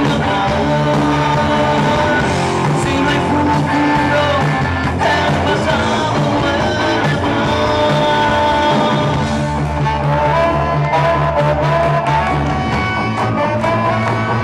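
Live rock band playing: a male vocalist singing over electric guitars and drums.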